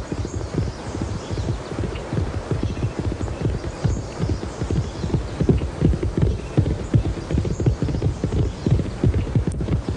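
A horse's hooves clip-clopping quickly, a dense, uneven run of dull thuds that continues throughout.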